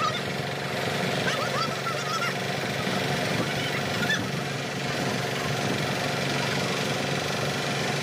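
Concrete mixer's engine running steadily, with a few short high calls about one to two seconds in and again about four seconds in.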